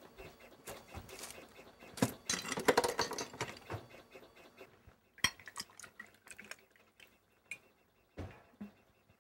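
Glass and tableware clinking on a table: a busy stretch of rattling knocks about two seconds in, then a series of separate sharp clinks.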